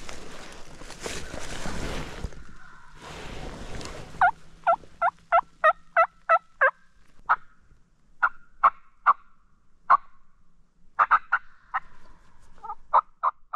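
Rustling noise for the first few seconds, then a wild turkey yelping: runs of short, sharp, loud notes about three a second, broken by pauses.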